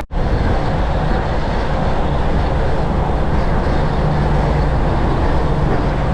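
Semi-truck driving, heard from inside the cab: a steady diesel engine drone under road and tyre noise, with a low hum that grows stronger about four seconds in.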